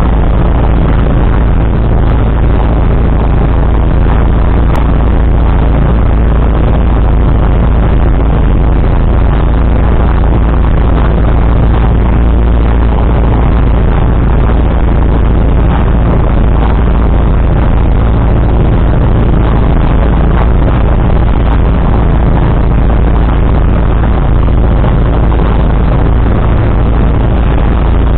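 A light single-engine aircraft's piston engine and propeller run steadily, heard from inside the cockpit. The sound is loud and unchanging, with no drop to idle.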